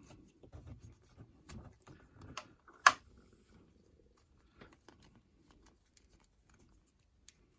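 Small plastic clicks and handling noise from a 6-inch action figure and its shield being fitted together by hand. One sharp click about three seconds in, then only sparse faint ticks.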